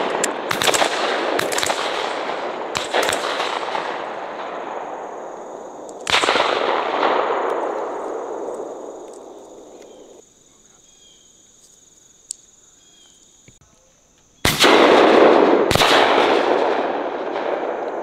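Several hunters' shotguns firing: a quick string of shots in the first three seconds, another about six seconds in, and two more about a second apart near the end, each shot trailing a long echo that fades slowly.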